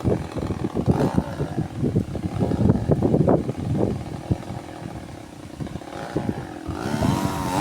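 Strong wind buffeting the microphone in irregular low gusts, with a chainsaw running underneath; near the end the chainsaw revs up with a rising whine.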